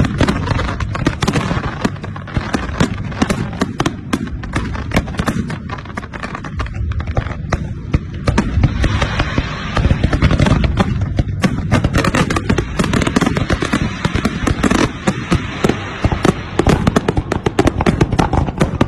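Fireworks display: a dense, unbroken barrage of bangs and crackling, many explosions a second.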